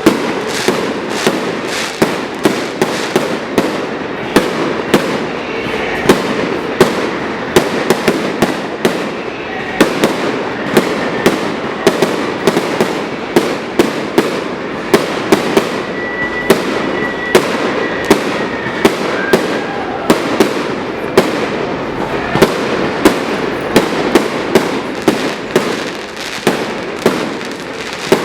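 Fireworks display at full barrage: a rapid, continuous run of bangs, several loud reports a second over steady crackling.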